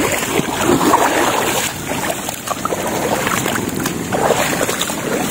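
Water sloshing and splashing close to the microphone, an uneven rushing noise with no steady rhythm.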